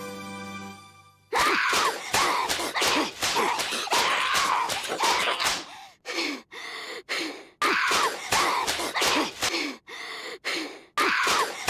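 A long rapid series of paper-fan (harisen) slap sound effects starting about a second in, sharp cracks about two or three a second, each followed by a short falling tone, with a few brief pauses.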